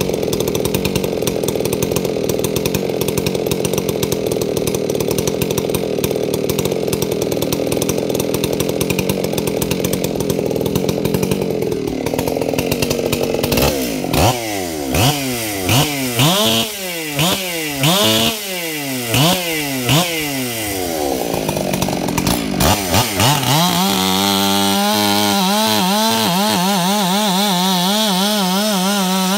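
A ported Stihl 461R two-stroke chainsaw runs steadily, then drops off. It is revved up and back down in a run of quick throttle blips. It then climbs to a steady, high-pitched full-throttle scream as the chain bites into a hardwood log near the end.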